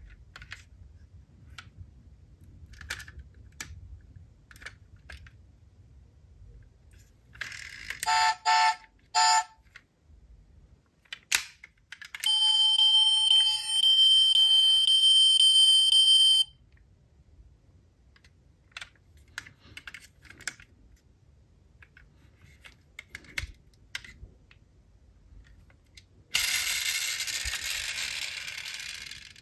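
Small die-cast toy cars being handled, with scattered light clicks and taps. Electronic sound effects from a toy car's sound unit: a few short beeps about eight seconds in, a steady electronic tone lasting about four seconds from around twelve seconds, and a loud hiss near the end.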